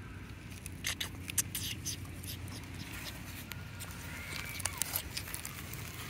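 Dry leaf litter crackling and rustling in scattered short clicks as macaques move about on the forest floor, with a faint short chirp about four seconds in.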